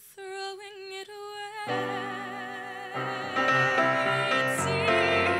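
A young female solo voice singing a Broadway show tune with vibrato, alone at first. Sustained accompaniment comes in about a second and a half in and swells louder around three seconds in.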